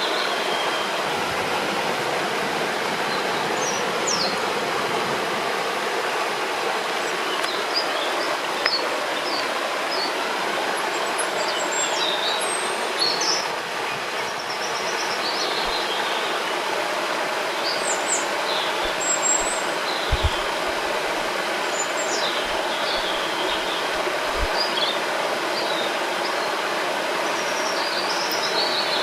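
Steady rushing of a river or waterfall, with small birds chirping and singing in short phrases throughout.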